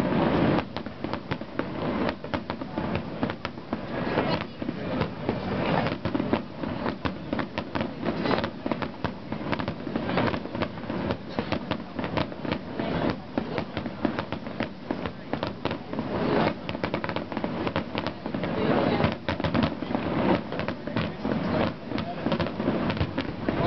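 Aerial fireworks display: a dense, continuous run of shell bursts and crackling bangs, many in quick succession.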